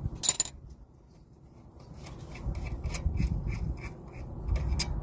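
Ratchet wrench with a 12 mm socket clicking at an even pace of about four to five clicks a second as a brake caliper bolt is backed out, after a sharp knock of the tool at the start.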